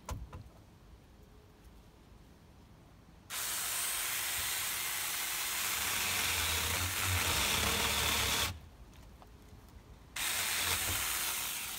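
Power tool cutting into a cedar pole in two bursts, a long one of about five seconds and a shorter one near the end, trimming the post to fit.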